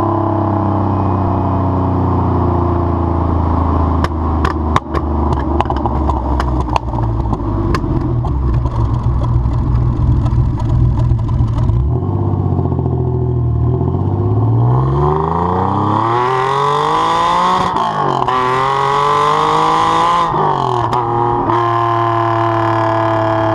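TVR Tuscan Speed 6's 4.0-litre straight-six running through its exhaust, with a run of sharp pops and cracks about four to seven seconds in. Past the middle the revs climb, sweep up and down several times, then drop back to a steady note.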